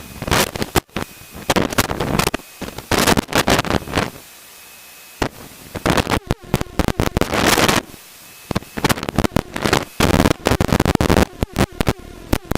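Gusty wind buffeting the microphone, giving irregular loud rumbling blasts and pops. Twice it eases briefly, about four seconds in and again near eight seconds, and a faint steady high tone is heard in the lulls.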